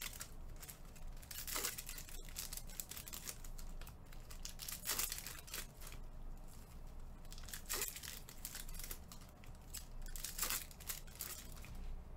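Wrappers of Bowman baseball card packs being torn open and crinkled, an irregular papery rustling with louder rips about one and a half, five, eight and ten and a half seconds in.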